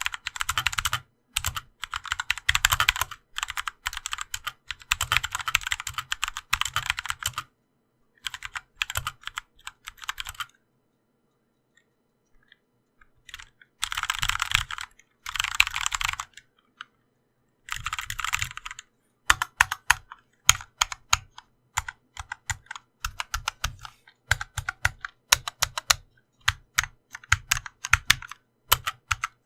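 Typing on a Glorious GMMK Compact mechanical keyboard fitted with Kailh Pro Purple tactile switches and dampener O-rings under the keycaps. Fast runs of keystrokes with short pauses, then slower, separate key presses in the last third.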